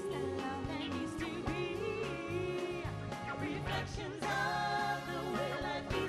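A female vocal trio singing live into microphones over a band of drums, electric guitar and keyboards; the music swells louder and fuller about four seconds in.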